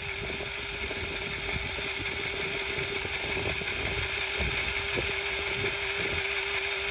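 Battery-powered grease gun running steadily with its trigger zip-tied on: a constant motor hum with a thin high whine above it, pumping grease into a seized engine to free it.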